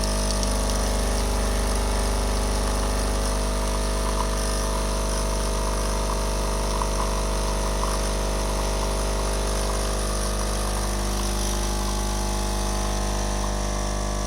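Nespresso Citiz coffee machine's pump humming steadily as it brews a lungo.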